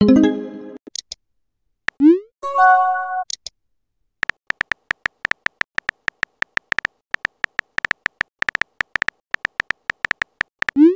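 Texting-app sound effects. A rising swoosh with a short chime sounds at the start, and another swoosh and chime about two seconds in, as messages pop into the chat. Then a fast run of keyboard tap clicks plays, one per typed letter, for most of the rest, and a further rising swoosh comes at the very end.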